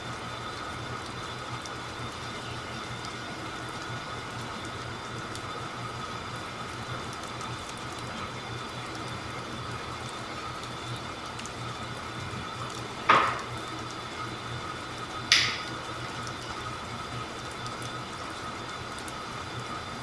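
Oiled hands rubbing over skin in a massage against a steady background hum, broken by two short sharp cracks about two seconds apart, roughly two-thirds of the way through.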